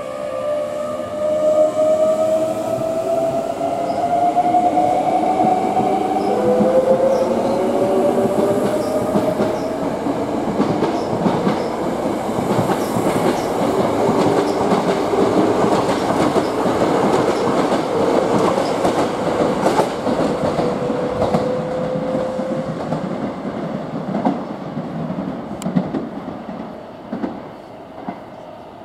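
Hankyu electric commuter train pulling out of a station. Its traction motors whine, rising in pitch as it accelerates, under the rumble and clatter of the wheels as the cars pass. The sound fades near the end as the last car leaves.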